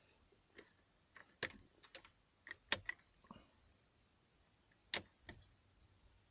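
Key working in a freshly repaired ignition lock, giving a string of irregular sharp mechanical clicks as it is inserted and turned through its positions; two clicks, in the middle and about five seconds in, stand out as the loudest.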